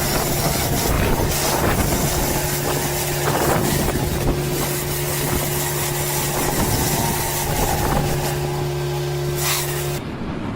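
Machinery running steadily with a constant low hum under a dense mechanical noise. It cuts off abruptly near the end.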